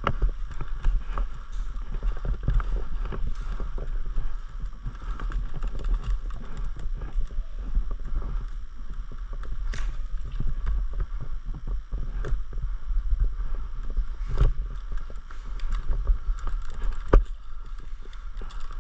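Wind buffeting a body-worn camera's microphone over footsteps and the rustle of gear, with a few sharper knocks or snaps about ten, fourteen and seventeen seconds in.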